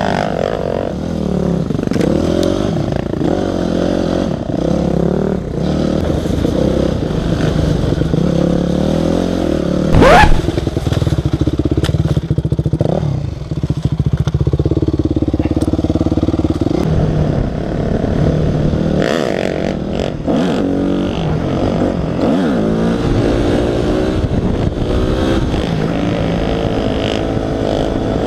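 Enduro dirt bike engine running under constantly changing throttle as it is ridden off-road, pitch rising and falling. About ten seconds in it gives one sharp, high rev, the loudest moment.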